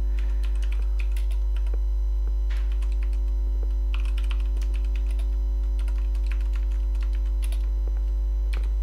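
Computer keyboard being typed in short bursts of key clicks, over a loud steady low hum.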